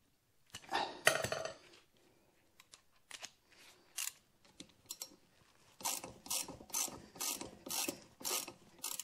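Socket ratchet wrench clicking as it works a 14 mm sprocket nut off a motorcycle's rear sprocket stud. There is a louder burst about a second in, a few scattered clicks, then a steady run of ratchet strokes, about three a second, near the end.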